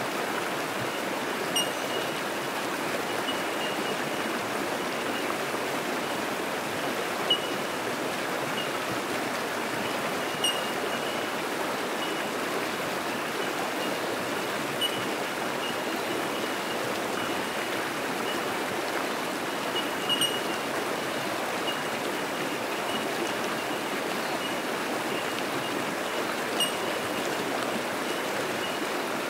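Fast-flowing creek rushing over rocks in a steady wash of water noise. Above it, bell miners (bellbirds) keep up a constant faint high tinkling, with a clearer single 'tink' standing out every few seconds, about six in all.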